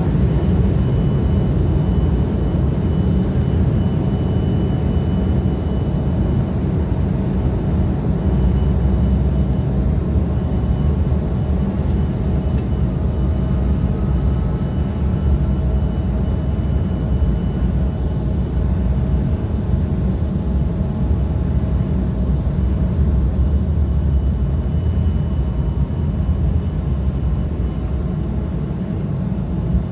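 Steady low rumble of an Embraer E175's turbofan engines at taxi power, heard inside the cabin, with a faint high whine above it.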